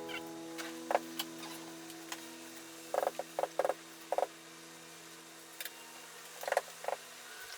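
Scattered short clicks and light taps, in small groups, over a low steady hum that cuts off near the end.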